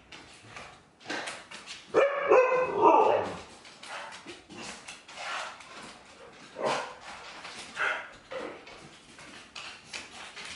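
Siberian Husky-mix dogs vocalizing in play: a loud run of wavering yips and barks about two seconds in, then shorter calls now and then.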